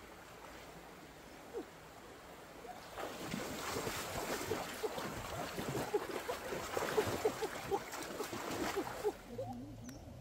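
Water splashing and gurgling, starting about three seconds in and easing off near the end, over a faint steady hiss.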